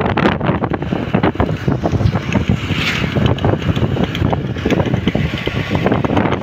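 Heavy wind buffeting on a phone microphone from the pillion seat of a moving motor scooter, with road and vehicle noise underneath.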